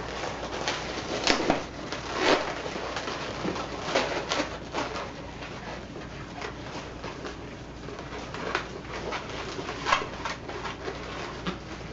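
Latex modelling balloons squeaking and rubbing against each other as they are twisted and shaped into legs, in irregular short squeaks and crinkles.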